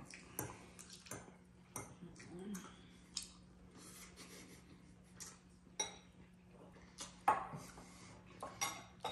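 A metal spoon and chopsticks clinking and scraping in bowls as two people eat, about a dozen scattered sharp clinks at irregular intervals. A faint steady hum runs underneath.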